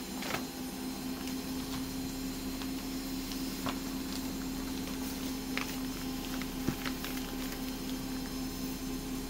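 A steady hum, with a few short crinkles and taps of a paper cross-stitch pattern sheet being handled.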